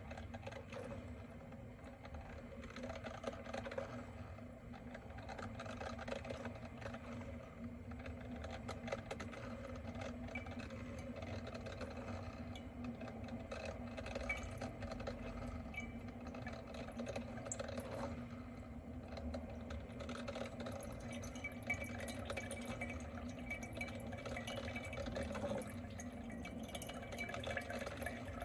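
Salter One Cup filter coffee maker brewing: a steady mechanical hum and the watery rush of water being pushed through the filter into the mug, stopping abruptly right at the end. The machine is noisy enough that it bothers housemates early in the morning.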